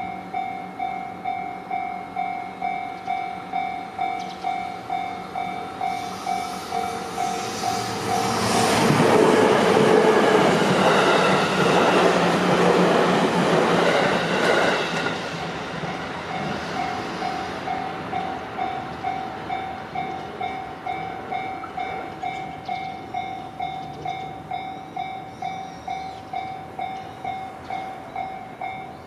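Japanese railway level-crossing alarm ringing its two-tone electronic bell in a steady beat, about one and a half strikes a second. About eight seconds in, a Tokaido Line train runs over the crossing for roughly seven seconds, loud enough to cover the bell, and then the bell rings on.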